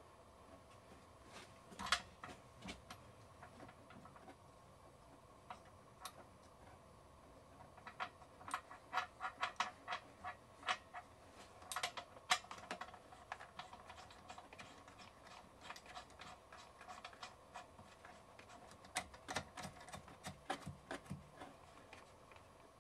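Irregular light clicks and taps of hands and small parts being worked while refitting an air pipe and its fittings on a compressor, coming in several quick clusters with quieter gaps between.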